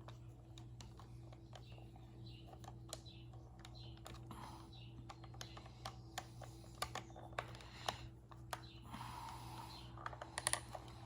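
Faint, scattered small clicks and taps of a homemade copper-wire tip being fitted into a soldering gun, over a faint steady hum.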